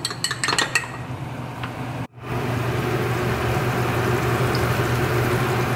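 Chopsticks clinking against a small glass as a flour-and-water slurry is stirred. After a sudden cut about two seconds in, a steady low hum from the stove as the slurry goes into a wok of tofu simmering in sauce over a gas flame.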